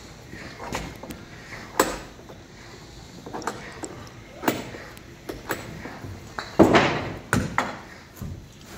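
Workshop handling noise: scattered knocks and metal clinks of clamps and wood being handled on a work table, with a louder rattling clatter about two-thirds of the way in.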